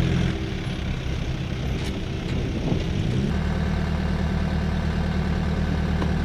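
Engines of light military utility vehicles running steadily. About three seconds in the sound changes abruptly to a steady, lower idling hum.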